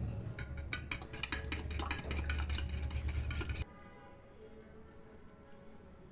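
Metal fork beating egg in a small glass bowl, the tines clicking rapidly against the glass, about six strokes a second. The beating cuts off abruptly a little over halfway, leaving only a few faint ticks.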